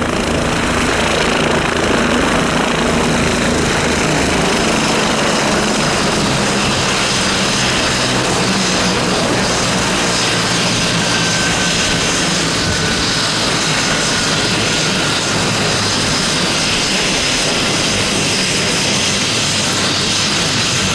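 Bell 429 twin-turbine helicopter running on the ground with its main and tail rotors turning. There is a steady turbine whine over the rotor noise.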